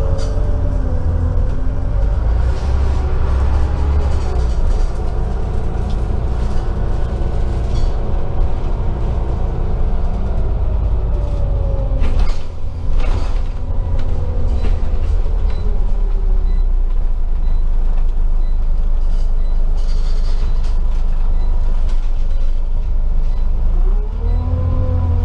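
Scania OmniCity single-deck bus's diesel engine and drivetrain heard from inside the saloon as the bus drives: a steady low rumble with whining tones that rise and fall with its speed. There is a brief knock about halfway, and the pitch climbs steeply again near the end as the bus picks up speed.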